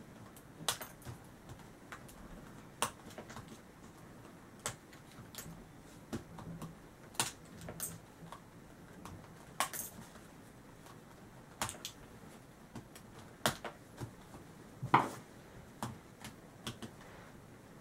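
Sharp plastic clicks and clacks, irregular and about one a second, from a megaminx speed puzzle being handled and adjusted; the loudest click comes near the end.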